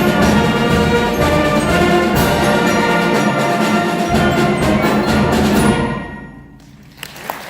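High school concert ensemble with brass and timpani playing the loud closing bars of a piece; the final chord is released about six seconds in and dies away in the hall, and applause starts near the end.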